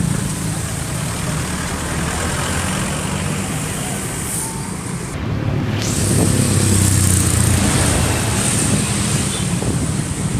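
Engines of large road vehicles, buses and trucks, running in slow traffic with a steady low drone that grows louder about six seconds in as one comes close.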